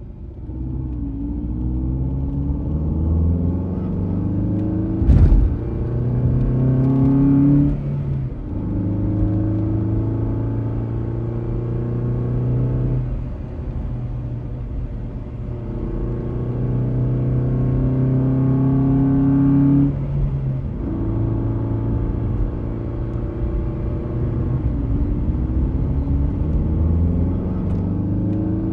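Toy car motor running, its pitch shifting up and down in steps, with a sharp knock about five seconds in.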